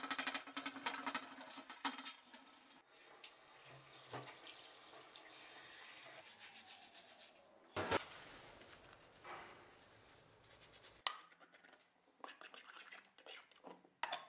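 A brush scrubbing the forged steel head of a mason's hammer under a running tap in a stainless steel sink, cleaning it off after rust removal by electrolysis, then a rag rubbing the wet head dry. A sharp knock about eight seconds in.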